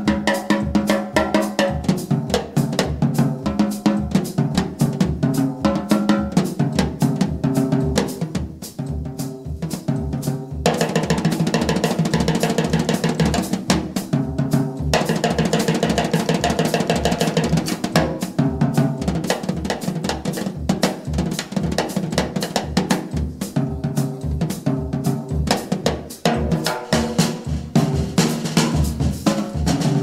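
Jazz drum solo on a full drum kit: snare, bass drum and tom-toms played in a busy rhythmic pattern over a steady low bass-drum pulse.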